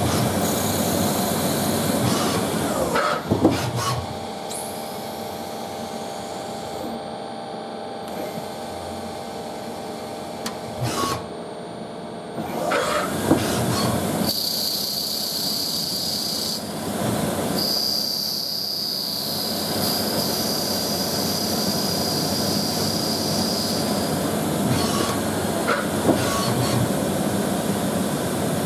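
CNC lathe running while it cuts a black Bakelite part, a steady mechanical hiss and hum. Sharp clunks as the tool turret changes tools break it a few seconds in and again about twelve seconds in. A steady high whine runs through the second half.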